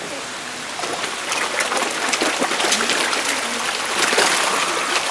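Many koi splashing and slurping at the pond surface as they crowd together, over a steady rush of water. The splashing picks up about a second in and stays busy.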